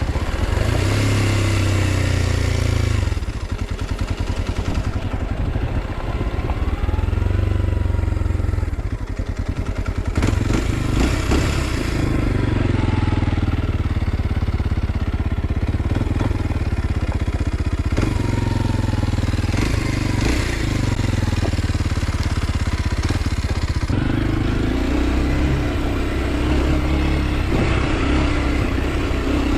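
A 2023 Kawasaki KLX 230 SM's single-cylinder four-stroke engine under way, its revs rising and easing off several times.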